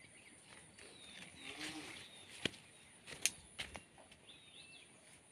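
Faint rural garden ambience: short high descending bird chirps, a brief low animal call about one and a half seconds in, and a few sharp clicks, the loudest about three seconds in.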